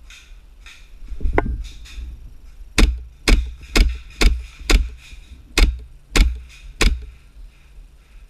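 Airsoft MP7 gas-blowback gun fired in single shots: eight sharp cracks, roughly two a second, each with the snap of the cycling bolt. A duller thump comes about a second before the first shot.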